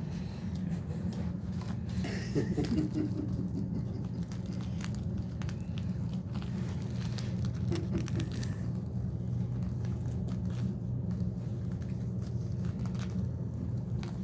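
Rustling, crinkling and scratchy clicks of a caique parrot playing with and under a hat, over a steady low hum.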